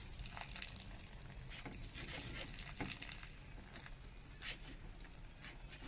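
Faint handling noise of PVC plumbing pipe and fittings: a few light clicks and taps, scattered and irregular.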